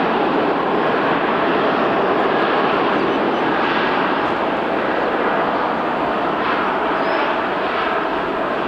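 Widebody airliner's jet engines running, a loud steady noise that eases slightly toward the end.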